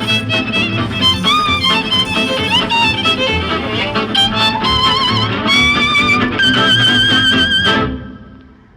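Background music: an instrumental break of an old jazz song, a wavering melody over a steady accompaniment, ending on a held note that fades out near the end.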